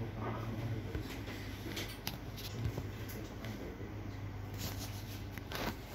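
HP LaserJet Pro M226dn laser printer running as it prints and feeds out an engine test page, a sign that its print engine works: a steady low hum with a few light clicks.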